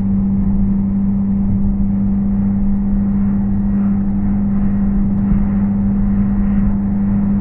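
Car driving at expressway speed, heard from inside the cabin: a steady drone of engine and tyre noise with a strong low hum that holds one pitch.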